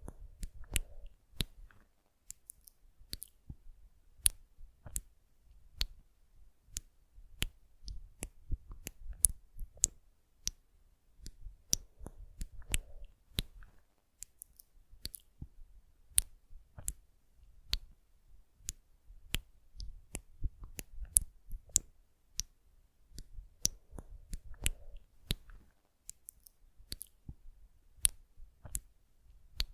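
Close-miked ASMR clicking and tapping: sharp, irregular crisp clicks, often several a second, over soft low thuds of objects handled right at the microphone.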